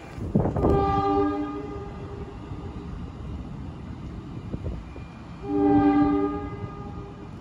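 Electric commuter train's multi-note horn sounding two long blasts a few seconds apart as the train moves away, over a low rumble.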